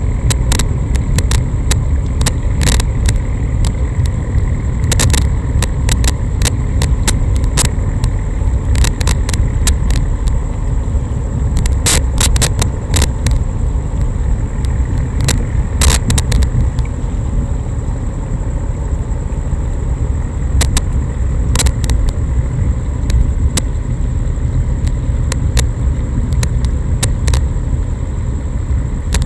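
Waterfront night ambience, volume-boosted: a steady low rumble with many short sharp clicks scattered through it and a faint steady high tone.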